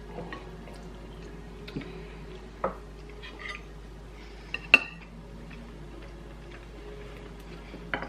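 Cutlery clinking against plates and bowls while eating: a handful of scattered sharp clinks, the sharpest a little under five seconds in, over a faint steady hum.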